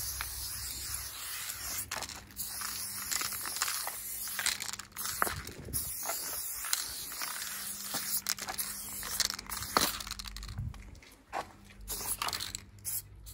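Aerosol spray-paint can hissing in long bursts as paint is sprayed. The hiss breaks off briefly about five seconds in and again about ten seconds in, then comes back as a few short spurts near the end.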